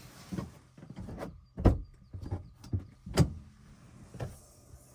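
Camping gear being handled: a run of irregular thumps and rustling swishes, the two loudest knocks about a second and a half and three seconds in.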